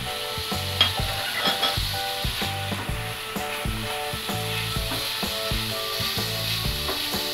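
Spiced chicken pieces sizzling in oil on a hot flat tawa, stirred with a wooden spatula that scrapes and taps the pan, with a soft tune playing underneath.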